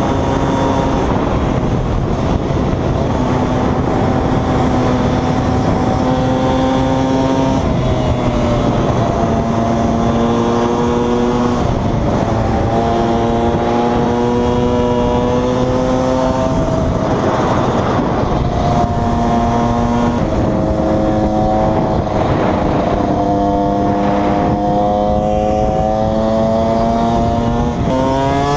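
KTM 125 EXC two-stroke single-cylinder engine on the move, holding steady revs for a few seconds at a time that step up and down with throttle and gear changes. The revs rise quickly near the end.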